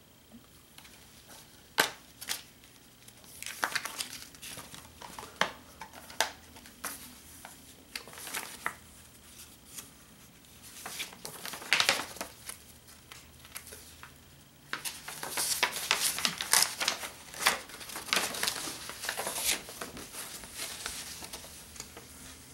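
A plastic Blu-ray case being handled, with sharp clicks and taps in the first half, then a folded paper poster pulled out and unfolded, rustling and crinkling through most of the second half.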